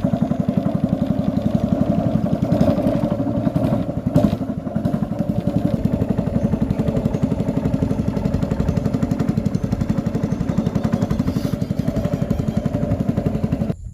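Small boat's motor running steadily at a constant speed, with a fast, even pulse.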